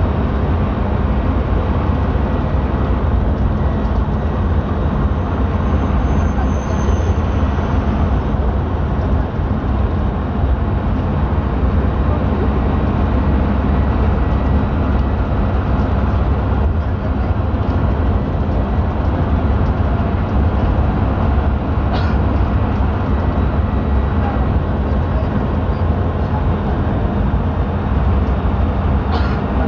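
Steady engine and road rumble heard from inside a vehicle travelling at speed, dominated by deep low noise.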